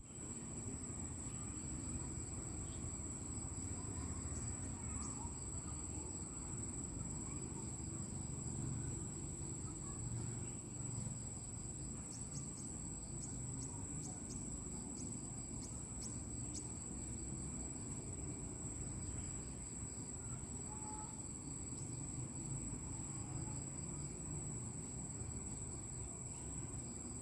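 Insects, crickets, trilling as one steady high-pitched drone, over a low rumbling outdoor background with a few faint clicks around the middle.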